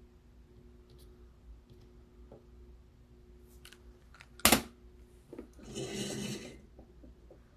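Small tools handled on a repair bench: faint ticks, one sharp click about four and a half seconds in, then a brief rasping scrape of under a second, over a faint steady hum.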